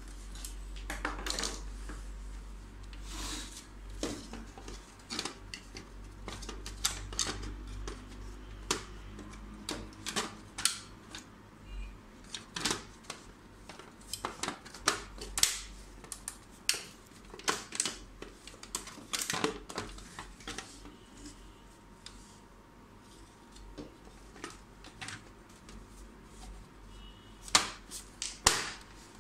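Irregular sharp clicks and light knocks of plastic and sheet-metal parts being handled and fitted together on an HP LaserJet P1102 laser printer during reassembly, with a quick cluster of clicks near the end.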